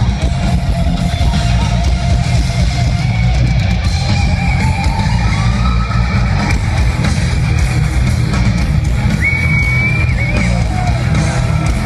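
Heavy metal band playing live through a large outdoor PA, heard from within the crowd: loud distorted electric guitars over heavy drums and bass, with a lead guitar line sliding and bending above.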